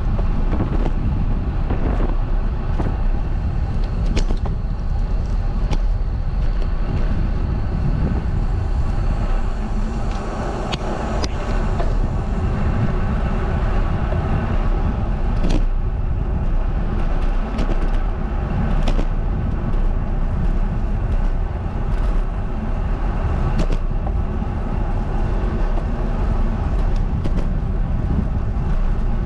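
Steady wind and road rumble on a bicycle-mounted camera riding along a paved road, heaviest at the low end, with scattered small knocks and clicks from bumps.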